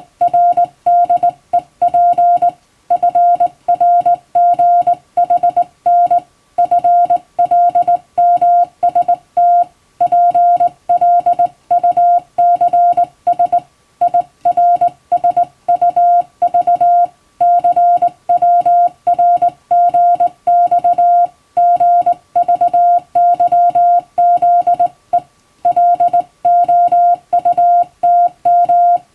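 Hand-sent International Morse code: a steady mid-pitched beep keyed on and off in quick dots and dashes, with short gaps between letters and words, sending a message in telegram format.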